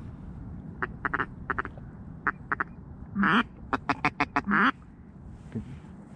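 Duck quacking in short runs. A few quick quacks come in the first couple of seconds, then one long loud quack, then a fast run of about five quacks ending in another drawn-out one.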